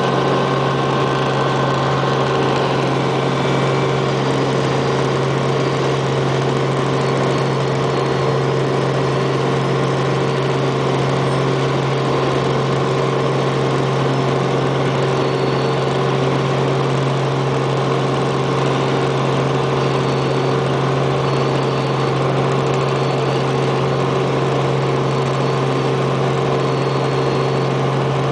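Robinson R44 helicopter in steady forward flight, heard from on board: the constant drone of its six-cylinder Lycoming piston engine and rotors, with a strong low hum and steady higher tones that never change.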